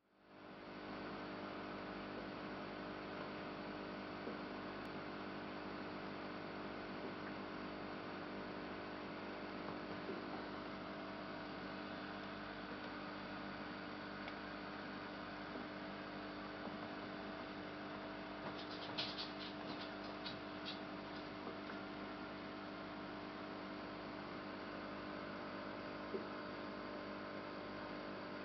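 Steady electrical hum made of several fixed tones, with a short run of faint sharp ticks about two-thirds of the way through.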